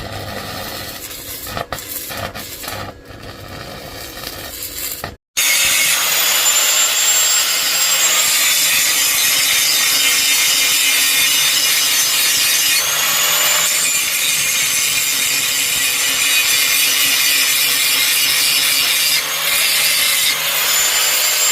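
Rasping strokes of a tool worked against the axe for about five seconds. After a sudden break, an electric grinder runs loudly and steadily on the steel with a high whine, its pitch sagging and climbing back up a few times as the load comes and goes.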